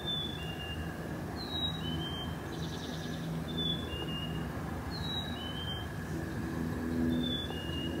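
A songbird repeating a clear two-note whistle, a higher note then a lower one, five times, over a steady low background hum.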